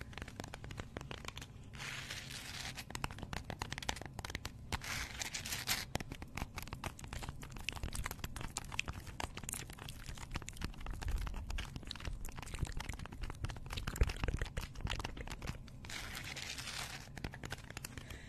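Close-miked crackling, crinkling and tearing as a dry, crunchy beige object is crushed and picked apart by long fingernails, a dense run of small crackles, with a couple of low thumps on the microphone near the middle and a few breathy whispers.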